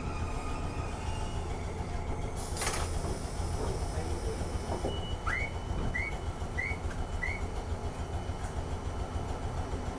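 Randen (Keifuku) tram running along the line, a steady low rumble of motors and wheels on the rails. There is one sharp knock a little under a third of the way in, and four short rising squeaks at even spacing just past the middle.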